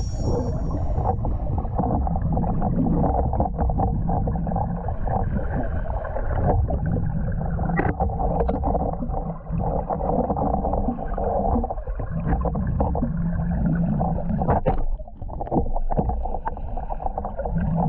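Muffled underwater noise of a scuba cave diver: exhaled bubbles from the regulator swelling and fading every few seconds, with a few light knocks.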